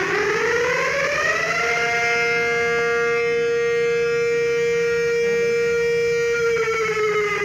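Outdoor tornado warning siren winding up in pitch, then holding a steady two-note tone, and starting to wind down near the end.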